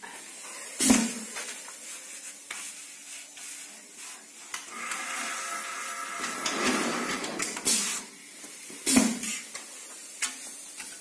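Metal clanks of an egg roll machine's hinged baking plates being opened and shut, loudest about a second in and again near the end. In the middle stretch a small electric motor whines steadily as it spins the rolling rod that the egg roll sheets are wound on.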